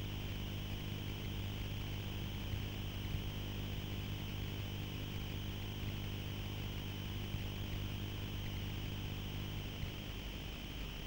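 A steady low mechanical hum, like a motor running evenly, that fades out about ten seconds in, over a steady background hiss.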